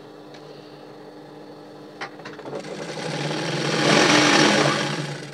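Sewing machine stitching a red non-woven bag handle strap, after a couple of clicks about two seconds in. It speeds up, then slows and stops near the end.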